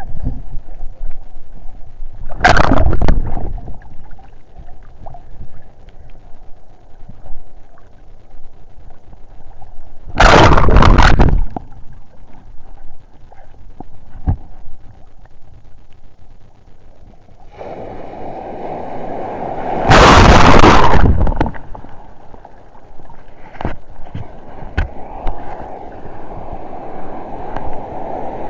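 Sea waves sloshing around a camera held at water level, with three loud rushes of surf breaking over or against it, about 3, 10 and 20 seconds in.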